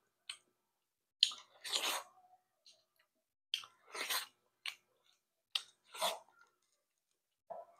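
Person chewing a mouthful of rice and kinilaw tangigue, heard close up as short bursts of mouth noise a second or so apart with quiet gaps between.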